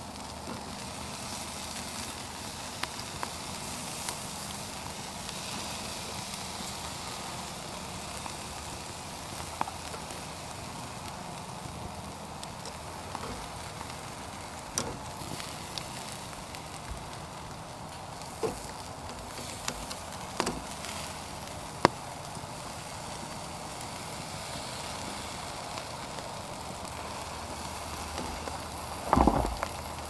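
Marinated beef sizzling on wire grill racks over a wood campfire, with the fire crackling and scattered sharp pops. A short, louder clatter comes near the end.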